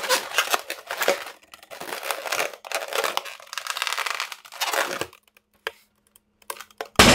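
Inflated latex modelling balloon twisted and squeezed by hand, rubbery squeaking and crinkling for about five seconds, then a few light clicks, and the balloon bursts with a loud pop at the very end.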